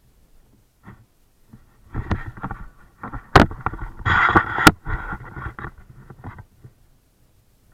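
Handling noise on a hand-held camera: irregular rubbing and scraping against the microphone for a few seconds, with two sharp clicks a little over a second apart.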